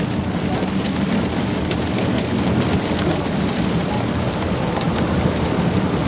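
Herring and seawater gushing from a fish pump onto a mesh dewatering screen: a steady rushing splash with many small pattering hits.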